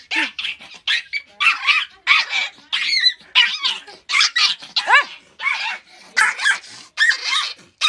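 Small fluffy puppy barking over and over in high-pitched yaps, about two a second, some with a rising-then-falling pitch.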